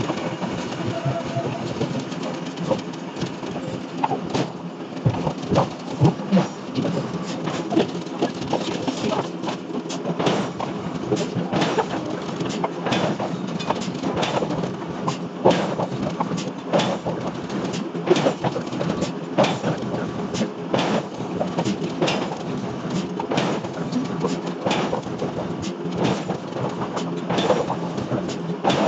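Industrial forging machinery at work: repeated sharp metal-on-metal strikes at an irregular pace, about one or two a second, over a steady machine hum.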